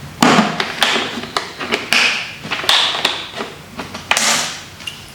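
Handling noises: a rapid string of clicks, knocks and rustles as small tools are put into a tool box.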